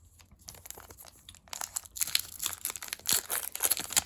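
Foil trading-card pack wrapper being crinkled and torn open by hand, a dense crackle that starts sparse and grows loud from about one and a half seconds in.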